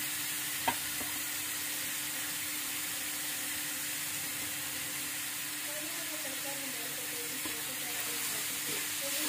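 Chopped onion and cabbage sizzling in hot oil in a frying pan, a steady hiss, stirred with a wooden spatula toward the end. A single click comes about a second in.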